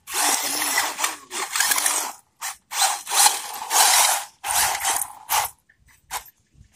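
Toy electric remote-control car's motor and gears whirring in several short bursts of about a second each, stopping and starting as it is driven over loose dirt. The bursts give way to a few faint clicks near the end.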